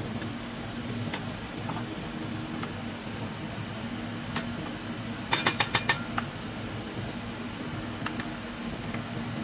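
A spoon stirring a thick chicken-and-vegetable filling in a stainless steel saucepan, with a few scattered light clicks and, a little past halfway, a quick run of about six sharp knocks of the spoon against the pan, over a steady low hum.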